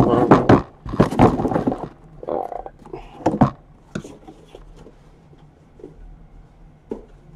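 A cardboard case being lifted off a stack of shrink-wrapped hobby boxes, scraping and rustling for about two seconds. Then come a few sharp knocks and fainter taps as things are set down.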